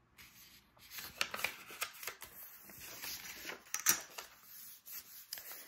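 Paper envelope being folded and creased flat by hand: irregular rustling and crinkling of the paper, with a few sharp ticks and taps.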